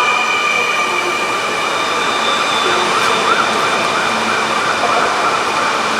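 Pesa Elf II electric multiple unit moving slowly into the platform, its running gear giving a steady high whine over a rumble, with a wavering, siren-like tone joining from about two seconds in.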